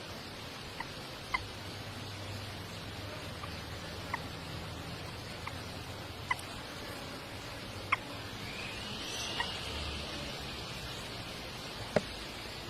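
Birds giving short, sharp peeps every second or so over a steady hiss, with one longer arching call about two-thirds of the way through.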